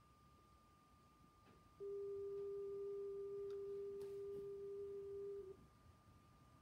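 A single steady electronic tone, mid-pitched and pure, held for nearly four seconds from about two seconds in and then cut off, played through the TV speaker as the VHS tape starts before its warning screen.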